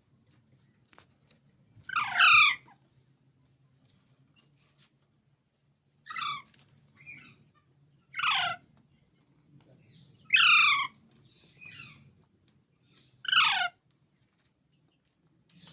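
Baby parrot squawking: five loud, harsh calls, each a quick downward sweep in pitch, about two to three seconds apart, with a few fainter short calls between them.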